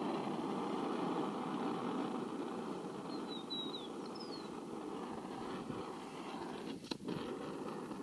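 Steady hiss of a lit oxy-fuel torch with a brazing tip, fading slowly. A few short bird chirps come about three to four seconds in, and a single click about seven seconds in.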